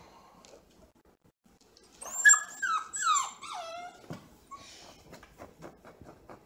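Bluetick beagle puppy giving a quick run of about four high-pitched whines about two seconds in, each sliding down in pitch. Faint, quick rhythmic soft sounds follow.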